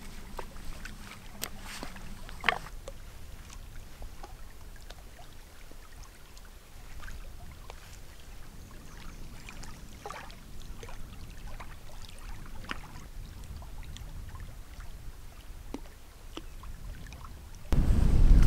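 Wind rumbling on the microphone, with scattered light clicks and knocks from sticks of firewood being handled; the sharpest click comes about two and a half seconds in. Near the end a much stronger gust hits the microphone with a loud low rumble.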